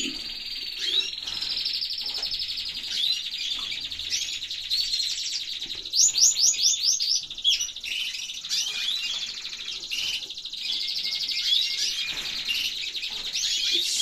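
Caged canaries singing: long, rapid trills run on throughout, with a quick run of rising whistled notes about six seconds in and scattered chirps.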